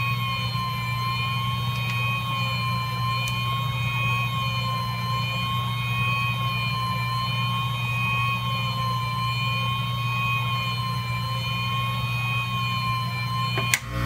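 Hot-air rework station's blower running steadily through a large nozzle while it heats a BGA chip to reflow its solder: an even whine over a low hum. A short click comes near the end.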